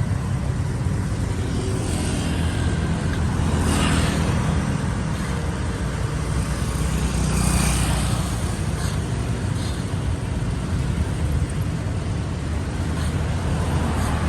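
City road traffic: a steady low rumble of engines and tyres, with a couple of cars passing closer and swelling up and fading away.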